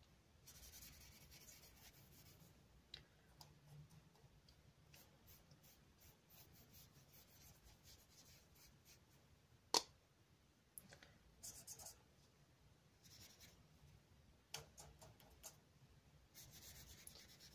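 Faint scratchy strokes of a paintbrush laying watercolour on acrylic paper, coming in short spells, with one sharp click about ten seconds in.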